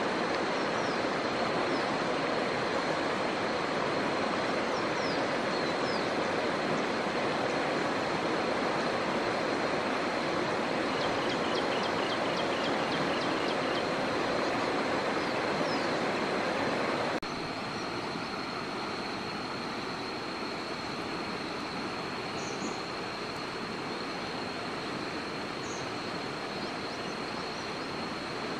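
Shallow river rushing over rocks in rapids, a steady broad hiss of moving water. About two-thirds of the way through, it cuts off abruptly to a quieter outdoor background. A thin, steady high whine sounds throughout.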